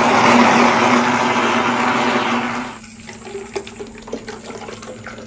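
Electric blender motor running loud and steady, whirling a drink in its jar, then cutting off after almost three seconds. A thick drink is then poured from the jar into a plastic jug, with light splashing.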